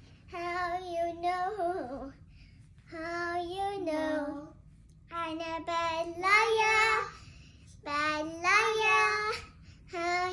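A young girl singing on her own, in four phrases with short pauses between them, holding and sliding her notes.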